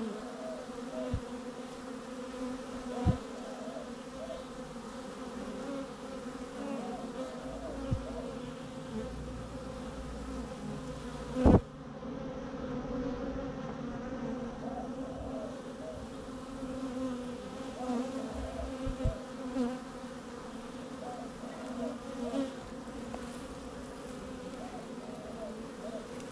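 A swarm of honeybees buzzing steadily: a wavering hum from many bees at once. A few sharp knocks break in, the loudest about halfway through.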